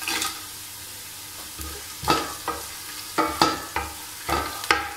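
Sliced onions and whole spices sizzling in hot oil in a stainless steel pan. A wooden spoon stirs and knocks against the pan several times in the second half.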